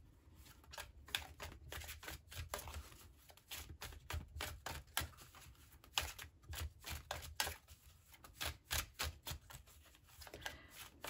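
A deck of tarot cards being shuffled by hand: a quiet, irregular run of short card flicks and snaps.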